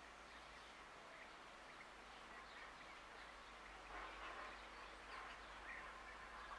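Near-silent rural outdoor ambience with faint, distant birds calling now and then, a little more often in the second half.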